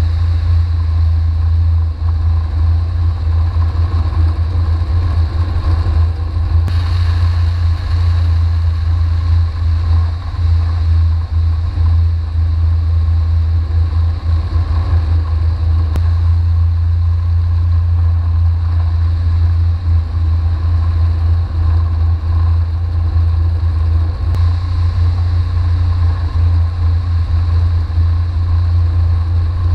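Flight Design CT2K ultralight running fast along the runway, heard from a camera mounted outside under the wing: a steady, loud low rumble of wind on the microphone together with the engine and propeller drone. A brighter hiss rises about seven seconds in and eases off again around sixteen seconds.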